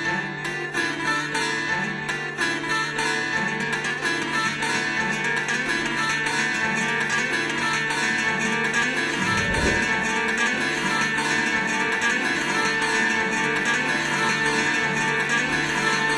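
Music: a strummed acoustic guitar playing steadily, with a brief low thump about halfway through.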